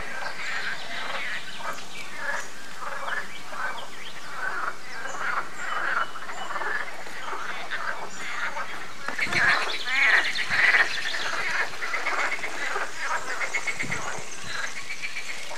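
A chorus of frogs croaking from the moat water, many short overlapping calls, growing louder and denser for a couple of seconds just past the middle.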